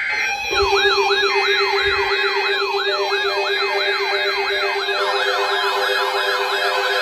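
Electronic siren-style alert tone: a pitch swooping up and down about three times a second over a steady low hum. About five seconds in, a second, faster swooping pattern joins it.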